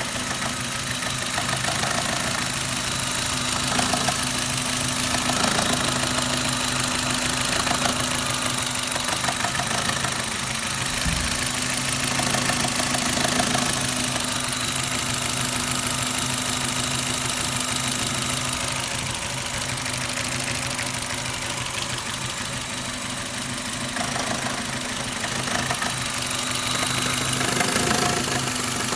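Suzuki Ignis's M13A 1.3-litre four-cylinder petrol engine idling with a fast, even knock: this is the extraneous engine noise being diagnosed by ear.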